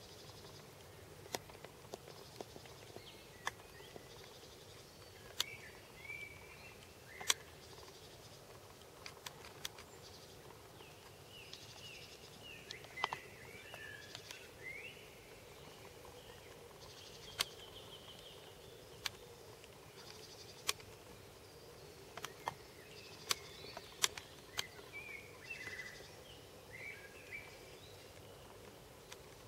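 Quiet outdoor ambience: birds calling in short chirping phrases now and then, over a faint steady hum. About a dozen sharp clicks stand out as the loudest sounds.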